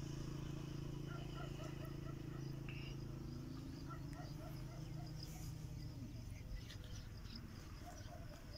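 Rural outdoor ambience: a steady low hum that fades after about six seconds, a thin high insect buzz, and runs of short chirps from small birds.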